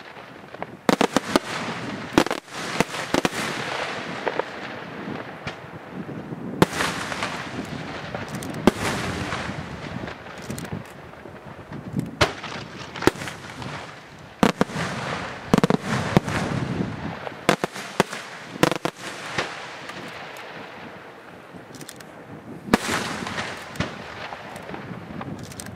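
Aerial firework shells bursting: many sharp bangs in quick succession over a continuous noisy din of echoing reports. The bangs thin out for a few seconds past the middle, then pick up again near the end.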